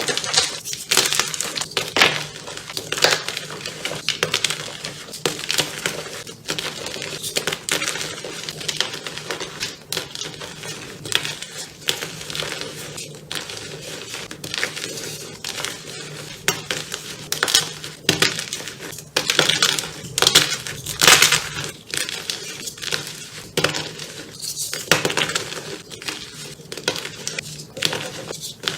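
Blocks of gym chalk being crushed and crumbled, a long run of irregular crisp crunches and cracks, densest about two-thirds of the way through.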